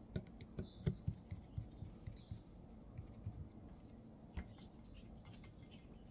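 Faint clicks and light scraping of a precision screwdriver turning a small screw into a folding knife's pocket clip. The clicks come in a quick run over the first second or so, then only a few scattered ones.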